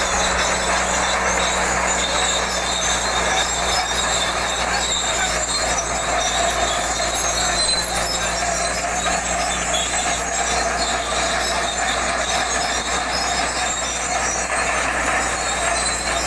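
Caterpillar D8 crawler bulldozer's diesel engine running steadily under heavy load, with its steel tracks, as it drags a deep-ripping plough through dry, hard soil.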